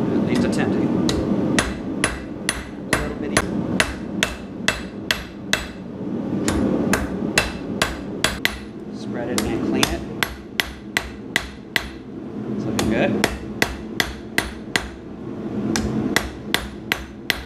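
Blacksmith's hand hammer striking red-hot steel on an anvil in runs of quick, sharp blows, about two to three a second, with short pauses between runs as the bar is turned and reheated. The blows are drawing out the tapered point of a scribe.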